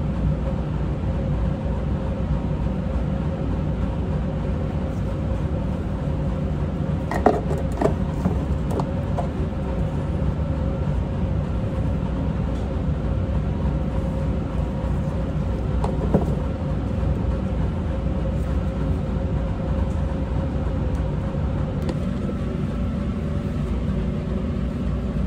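A steady mechanical drone with a faint constant hum, broken by a few light clicks and knocks about seven to nine seconds in and once more around sixteen seconds.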